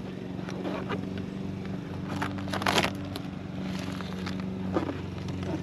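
Steady low mechanical hum like a running engine, with crackling and rustling from the tar-backed roofing sheet and its plastic film being handled, loudest about two to three seconds in.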